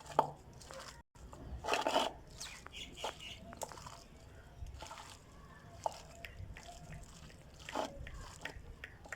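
Hands mixing a wet gram-flour pakora batter with chopped potato, onion and spinach: squelching and crunching in irregular bursts.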